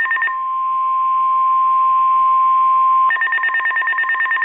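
Emergency alert tones from NOAA Weather Radio. A rapidly pulsing two-tone digital data burst (SAME alert codes) gives way about a third of a second in to a steady single alert tone near 1 kHz. That tone lasts about three seconds before the pulsing data burst returns.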